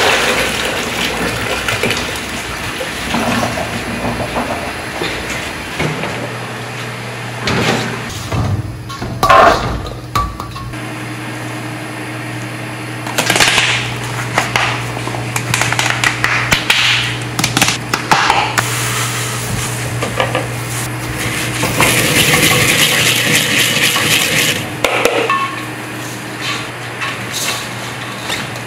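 Kitchen food preparation: soaked vegetables and water pour into a plastic colander in a basin, then seasoning is added and the vegetables are mixed by hand in a stainless steel bowl, with splashing and intermittent clattering. A steady low hum runs underneath.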